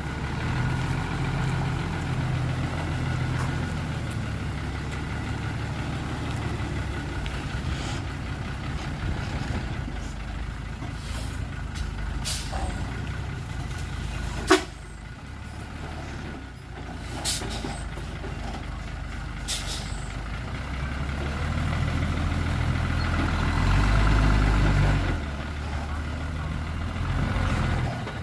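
Heavy diesel engines of dump trucks and a bulldozer running steadily, with several short, sharp hiss-like sounds in the middle, the sharpest about halfway through. The engine noise builds and grows loudest about three-quarters of the way in, then drops.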